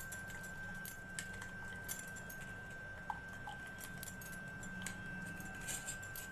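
Steel spoon scraping and pressing blended corn pulp against a stainless steel mesh strainer, with scattered light metallic clicks as the spoon knocks the mesh and rim.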